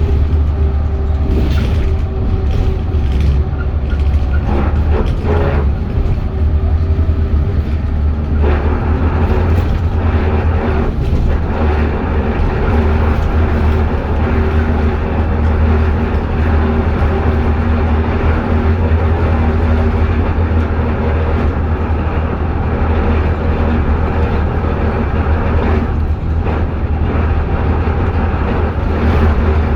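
Alexander Dennis Enviro400H hybrid double-decker bus heard from inside while on the move: a steady low drone with faint whining tones from the drivetrain.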